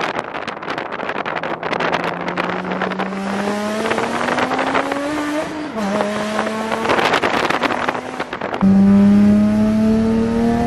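BMW straight-six accelerating hard through the gears, its exhaust note climbing in pitch. It drops sharply at an upshift about six seconds in, then climbs again and gets much louder a couple of seconds before the end.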